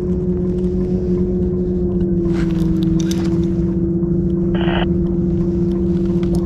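A boat motor droning steadily at an even pitch, with a short rasp about four and a half seconds in.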